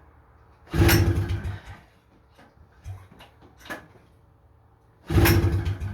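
Two recoil pull-start attempts on a 1977 Honda FL250's single-cylinder two-stroke engine, each cranking it over for about a second without it catching. The engine is hard to start; the owner suspects a rusted, broken carburettor.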